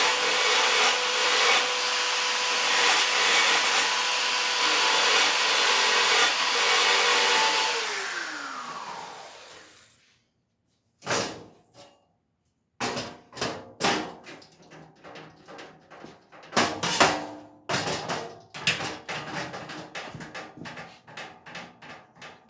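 Small electric grinder running steadily, then switched off about eight seconds in and winding down, used to flatten weld beads on a steel bike frame. After a short silence come a series of sharp knocks and clatter of metal parts being handled.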